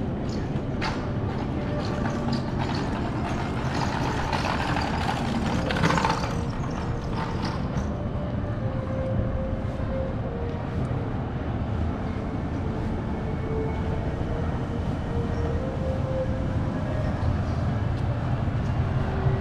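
City street traffic: a large vehicle's engine running with a steady low rumble and a wavering hum. There are scattered sharp clicks, and a louder rush about six seconds in.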